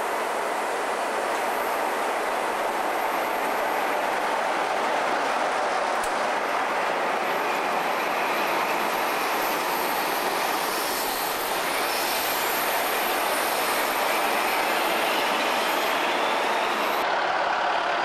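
Class 47 diesel-electric locomotive and its Cargowaggon freight vans running through the station at speed: a steady rushing rumble of wagons rolling past on the rails, with a thin rising whine in the last few seconds.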